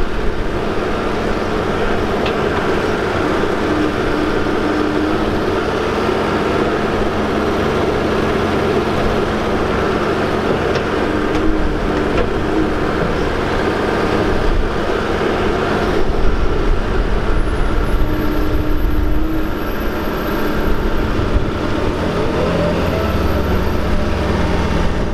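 Doosan DX140 tracked excavator's diesel engine running steadily under load while it digs with a tiltrotator bucket, with a few short higher tones from the hydraulics coming and going.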